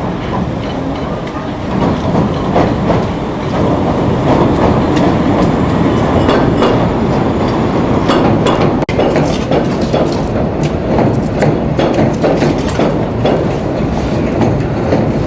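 Elevated Flushing Line subway train running on the rails, its noise building over the first few seconds. From about halfway on, the wheels clack sharply and repeatedly over rail joints.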